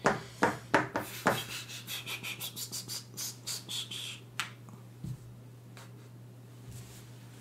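Hands handling board-game pieces and cardboard on a cloth playmat: a few sharp taps, then a quick run of rubbing and clicking for a couple of seconds and one last tap a little after the middle. A faint steady electrical hum sits underneath.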